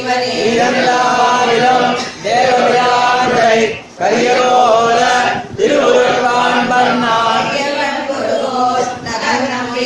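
Men's voices chanting a devotional hymn to a melody, in long held phrases with short breaks for breath about two, four and five and a half seconds in.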